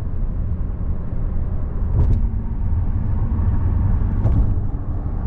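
Road and engine noise inside a car's cabin while driving on a highway: a steady low rumble, with two light clicks about two seconds in and near the four-second mark.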